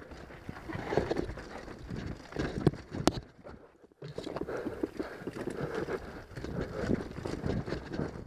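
Downhill mountain bike rattling and clattering over a rocky dirt trail: irregular knocks from the frame and suspension over rocks, with tyre noise on dirt. The sound briefly drops almost to nothing shortly before the middle.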